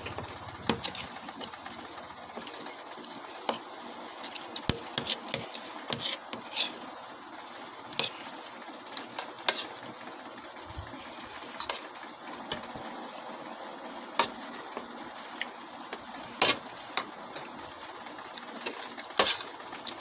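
Spoons and forks clinking and scraping against plates at irregular moments while eating, over a steady background whir.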